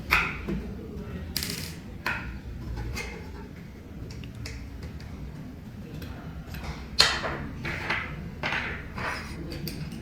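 Plastic VR controller parts being handled and set down during disassembly: irregular clicks and light knocks, the loudest about seven seconds in, over a low steady hum.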